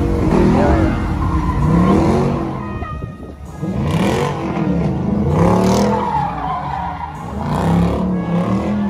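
A car engine revving up and falling back again and again, with the tyres squealing and skidding as the car spins donuts.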